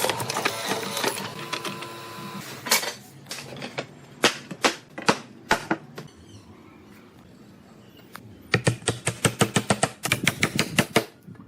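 Sharp taps or clicks, first scattered, then a fast, even run of about five a second in the last three seconds, after a dense noise that fades out over the first two seconds.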